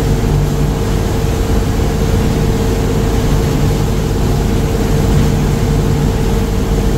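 Trawler's inboard diesel engine running steadily under way, a constant low drone heard inside the wheelhouse, with a steady whine above it.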